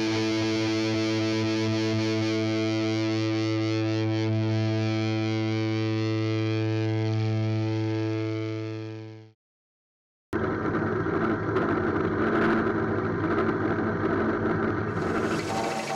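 Distorted electric-guitar chord held as intro music, fading out about nine seconds in. After a second of silence, a drill press motor runs steadily with a rough, whirring noise as the bit bores into an apple.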